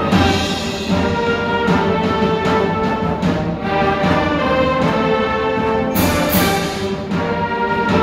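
Full youth symphony orchestra playing live, strings and brass together in sustained chords, with the brass prominent.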